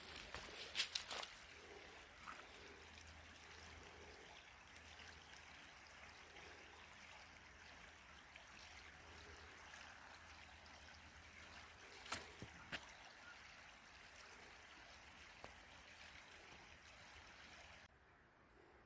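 Faint steady sound of creek water flowing, with a few sharp knocks in the first second and two more about twelve seconds in.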